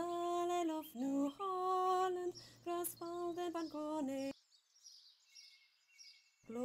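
A girl singing a slow song in long held notes. About two-thirds of the way in she stops for about two seconds, leaving only faint high chirping, then starts again near the end.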